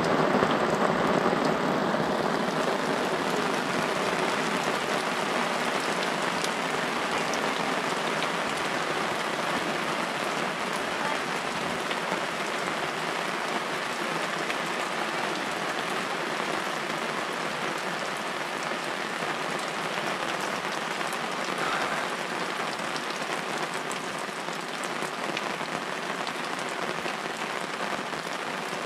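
Steady rain falling, an even hiss that is a little louder at the start and eases slightly toward the end.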